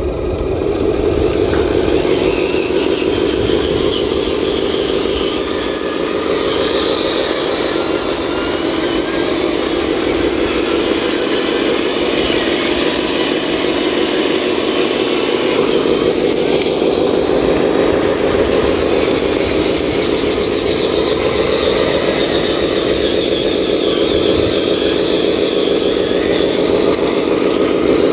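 Small electric motor and gearbox of a radio-controlled model truck running steadily, a continuous buzzing whine.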